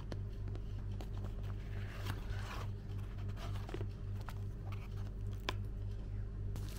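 Cardboard product box being opened by hand: flaps and inner tray scraping and rustling, with scattered light clicks, over a steady low hum.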